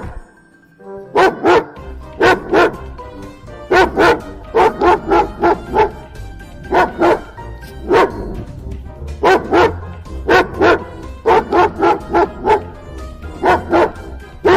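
A dog barking repeatedly in quick pairs and triplets of short barks, after a brief pause near the start.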